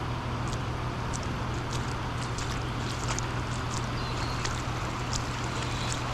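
Floodwater flowing, a steady rushing hiss, with scattered small high ticks through it and a constant low hum underneath.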